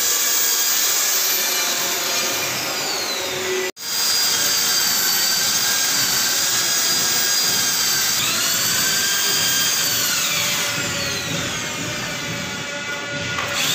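Electric hand drill running steadily, drilling into the stair treads for the railing posts, its motor whine sliding up and down in pitch. The sound cuts out sharply for a moment about four seconds in.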